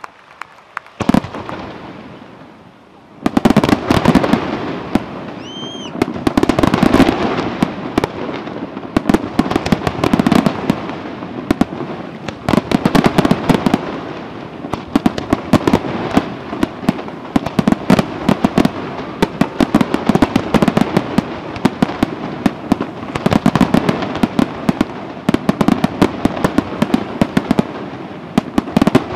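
Aerial fireworks display: a single shell bang about a second in, then from about three seconds in a dense, unbroken barrage of shell bursts and rapid popping stars.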